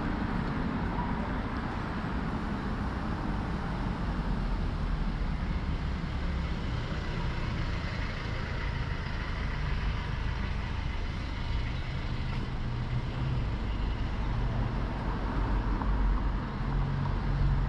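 City street traffic: motor vehicle engines running close by as a steady low rumble, growing slightly louder near the end.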